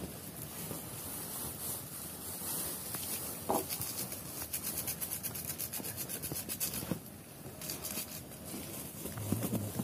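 Irregular rustling and rubbing close to the microphone, with a run of scratchy ticks in the middle.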